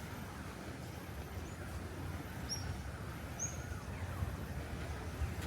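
Park ambience: birds giving short, high chirps about once a second over a steady low background rumble.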